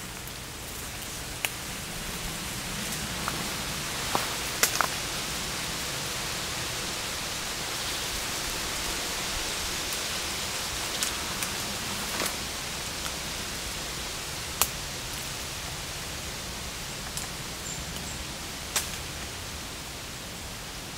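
A steady rushing hiss of forest ambience that slowly swells and then fades, with a few sharp clicks scattered through it.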